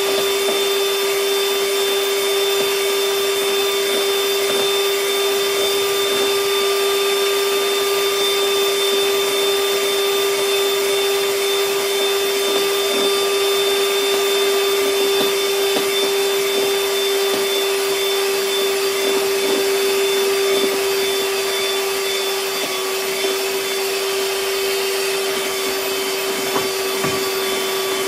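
Electric hand mixer running steadily at one speed, its beaters whisking eggs in a bowl.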